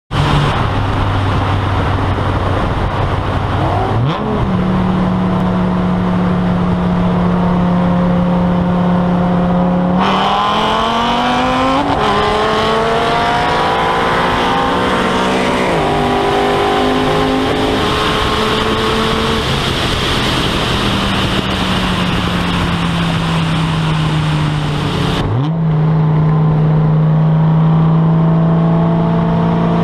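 Tuned Dodge Viper GTS V10 and boosted Ford Mustang GT 5.0 V8s racing at full throttle. Engine pitch climbs through the gears and drops back at each shift, across three abruptly cut runs.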